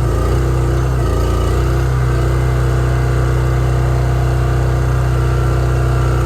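Engine of a Wolfe Ridge hydraulic firewood splitter running steadily, its tone shifting slightly near the start and again about a second in.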